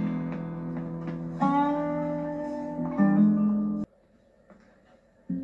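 Guitar music cue: a few held notes that change about every second and a half, then cut off suddenly, leaving a short quiet before a new note comes in near the end.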